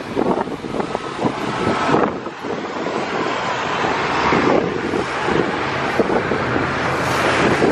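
Wind buffeting the microphone on a moving river boat, over the rush of water and a low, steady engine hum.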